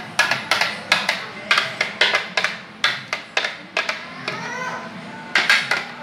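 A spoon tapping and scraping against a blender jar and a plastic mold while thick mousse is scraped out: a run of sharp knocks about three a second, easing off for a moment around four seconds in.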